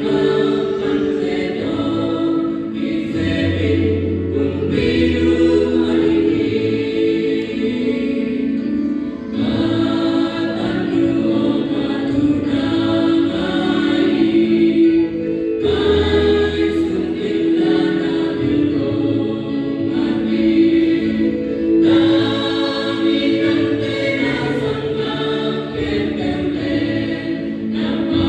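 Church choir singing a hymn, many voices holding long chords, with a deep bass note coming in at times.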